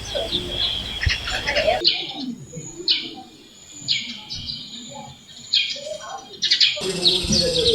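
Small birds chirping, with many short, sharp calls, some dropping quickly in pitch. The background hiss cuts out abruptly about two seconds in and returns just as abruptly near the end.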